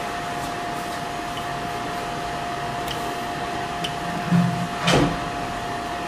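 A steady whirring noise with a constant faint hum, like a fan or small motor running, with a few light ticks and a sharper click about five seconds in.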